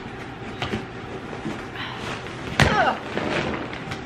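A large cardboard shipping box being handled and opened by hand, soft scrapes and knocks of the cardboard, then one loud thump about two and a half seconds in.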